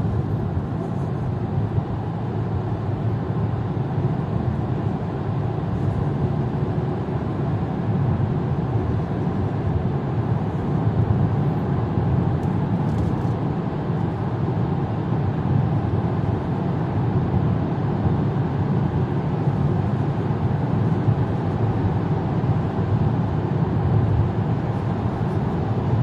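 Steady road and engine noise inside the cabin of a Haval Jolion crossover driving at an even pace.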